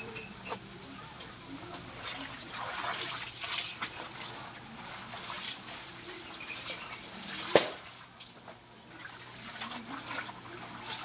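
Clothes being hand-washed in a basin of soapy water: uneven sloshing and splashing as the wet garment is lifted, wrung and dunked again. A single sharp knock comes about three-quarters of the way through.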